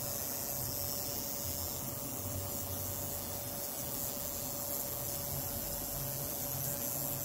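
Fuel injector's solenoid clicking on and off about 140 times a second under a square-wave drive, which blends into a steady buzz over a faint hiss. This is a bench simulation of ECU pulsing on a 5 V supply, at a rate the injector can still follow.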